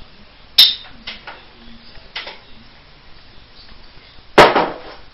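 Glass bottles being handled: a loud sharp click about half a second in, a few light taps, then a heavier knock with a brief ring near the end.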